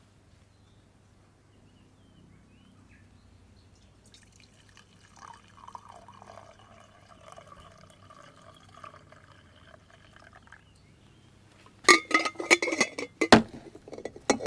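Liquid poured into a cup for several seconds, a faint ringing gurgle. Near the end come several loud, sharp clinks and knocks of cups or utensils.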